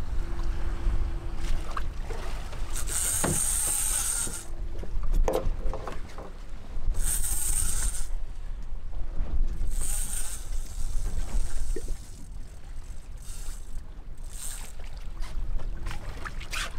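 Small fishing boat's outboard motor running low under wind noise, with a steady low rumble. Over it come several hissing bursts about a second long, with a thin high buzz in them, and a few sharp clicks.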